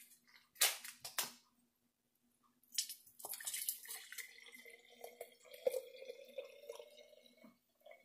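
Limeade poured from a bottle into a glass jar: a steady splashing pour that starts about three seconds in, with a faint ringing tone that slowly rises as the jar fills. A few sharp knocks come before the pour.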